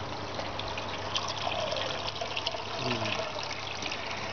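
Steady trickling and splashing of water, with the patter of many small drops.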